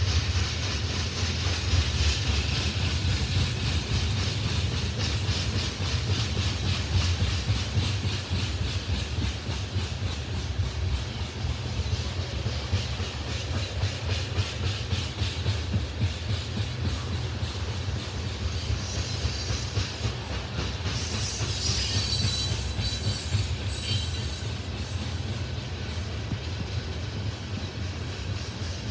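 Loaded tank cars of a freight train rolling past: a steady low rumble with rapid wheel clicks over the rail joints. A high-pitched wheel squeal rises over it for a few seconds past the middle.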